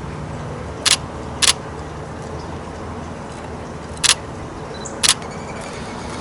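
Canon 90D DSLR shutter firing four times: two clicks about half a second apart, then two more about a second apart.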